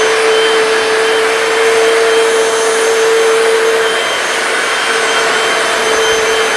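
Hoover PowerDash hard floor cleaner running, its suction motor and spinning scrub brushes making a steady whirr with a mid-pitched hum, as it scrubs a tile floor.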